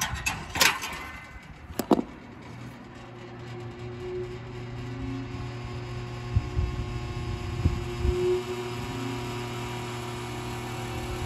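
Contactor of a 2004 Carrier condensing unit pushed in by hand with a few clicks, then the unit running with a steady electrical hum that builds for a couple of seconds as the condenser fan, spun by hand, comes up to speed. The fan will not start on its own because the dual run capacitor has failed.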